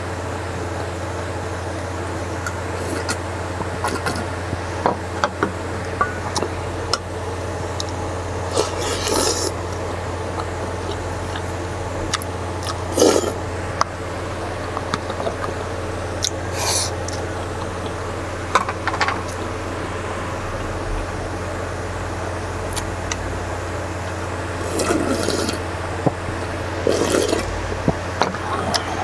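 Spicy noodle-soup broth slurped in short, separate sips from the rim of a stainless steel pot, about half a dozen times, over a steady low hum.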